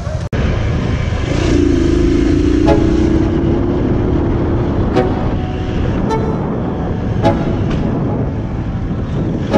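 Motorcycle engine running with a steady low rumble. A droning tone with overtones sounds for about three seconds near the start, and a few sharp clicks come later.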